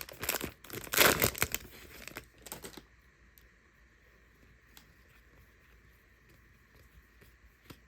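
Wrapping on a Donruss football card blaster box being torn open, loud crinkling and tearing for a little under three seconds, then only a few faint ticks of card handling.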